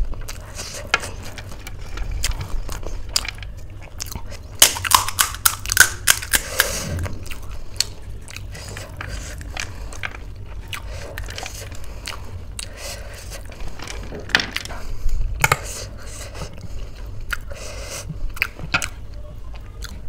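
Close-up eating sounds: crisp panipuri (phuchka) shells cracking and being crunched and chewed, with small clicks and squelches as a shell is broken open with the fingers and filled with ghugni. A rapid run of loud crunches about five seconds in is the loudest part.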